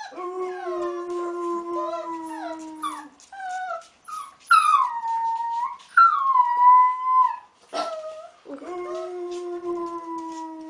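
A man howls on a low, steady note. A grey wolf pup answers with two loud, high-pitched howls that slide down in pitch, about halfway through, with a few short high yips around them. Near the end the man howls low again.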